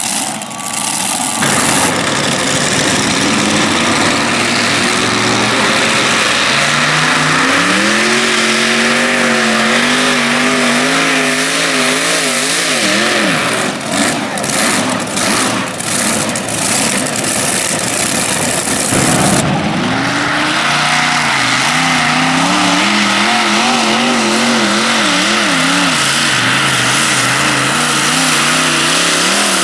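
Multi-engine modified pulling tractors running at full throttle while dragging a weight-transfer sled, loud throughout. The engine pitch climbs and wavers as they pull, and the sound changes abruptly partway through as another tractor's run begins.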